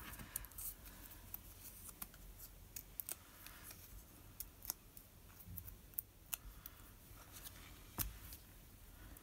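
Faint, scattered little clicks and crinkles of hands peeling mini adhesive foam dots and their plastic backing, with one sharper click about eight seconds in.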